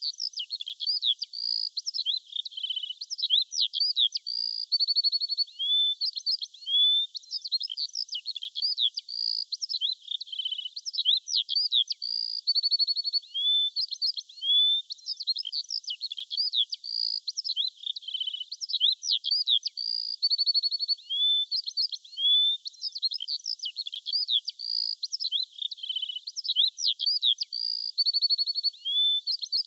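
Songbirds chirping and whistling in a dense, continuous chorus of quick calls, slurred whistles and short trills, all high-pitched with no low sound beneath. The same stretch of song seems to come round again about every eight seconds, as in a looped recording.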